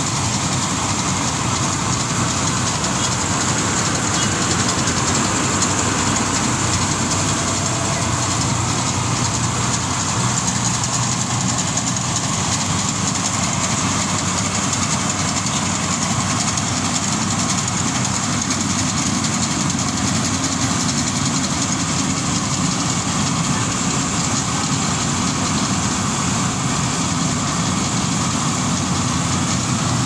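Small tracked rice combine harvester running steadily while it cuts and threshes rice, its engine and machinery giving a constant, unbroken drone.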